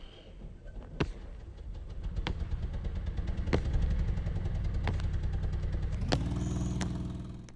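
A motor vehicle's engine running close by, growing louder over the first few seconds, then rising in pitch as it accelerates about six seconds in. Over it, sharp foot strikes on the ground come about every second and a quarter, from the repeated jumps of a track-and-field takeoff drill.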